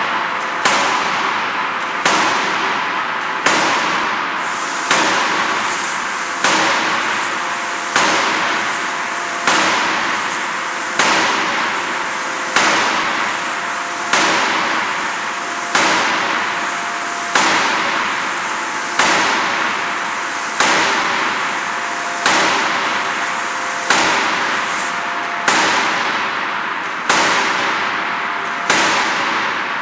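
Forging hammer striking at a steady rhythm, one loud blow about every one and a half seconds, each blow trailing off before the next, over a steady machinery hum.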